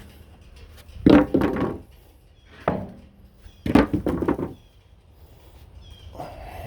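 Sawn wooden boards being handled and set down on a pile: a few hollow wooden thunks and knocks, the loudest about a second in and again near four seconds.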